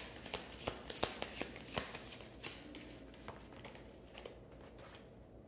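Tarot deck being shuffled by hand: a quick run of card clicks and flicks, dense at first, thinning out and stopping about four and a half seconds in.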